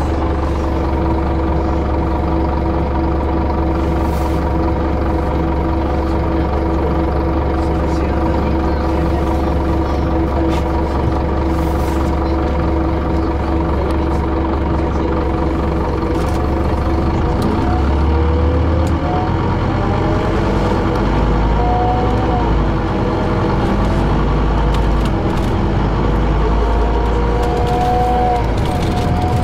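City bus engine idling at a stop, heard from inside the bus; a little over halfway through it pulls away, the engine note rising in pitch as it accelerates.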